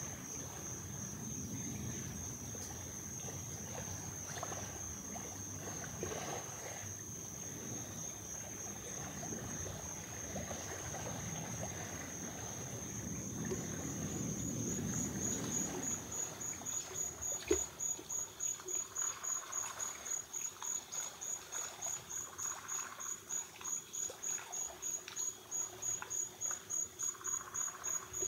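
Insects, crickets among them, trilling in a steady high-pitched chorus that pulses rhythmically, with the pulse growing more distinct about halfway through. A low background rumble fills the first half.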